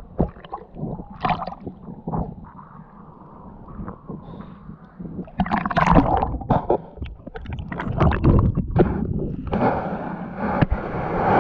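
Water splashing and gurgling around a snorkeller's camera, in irregular bursts that become busier about halfway through.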